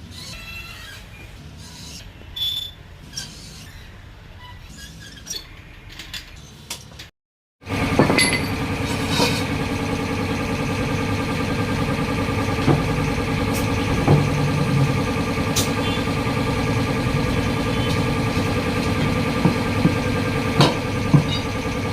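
Scattered clicks and a brief squeak from handling at first. Then, after a sudden cut, a motor runs steadily with a constant hum, with occasional clicks over it.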